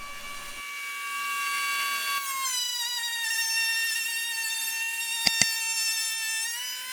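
Router motor on a router table running at speed with a steady high whine. Its pitch sags slightly about two seconds in, as when the bit takes a cut, and rises again near the end. Two sharp clicks come close together late in the run.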